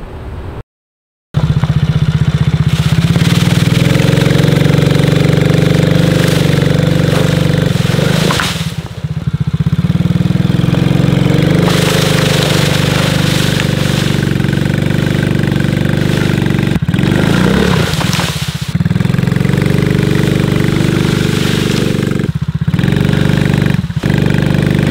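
Small Chinese ATV's engine revving hard under load as the quad is driven through a pile of brush and branches. The revs drop and pick up again several times, and the sound cuts out briefly about a second in.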